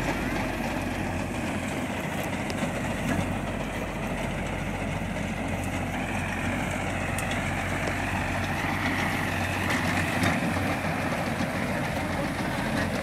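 85 hp New Holland tractor's diesel engine running steadily under load while it drives a reaper-binder cutting standing wheat, the engine and the binder's working mechanism blended into one continuous mechanical drone.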